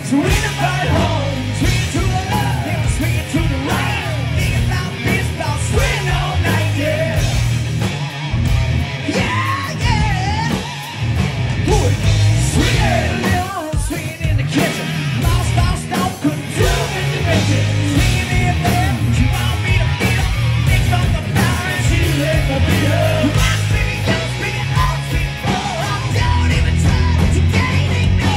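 Live hard rock band playing loudly through a PA: distorted electric guitars, bass and drums under a lead singer's shouted, sung vocals.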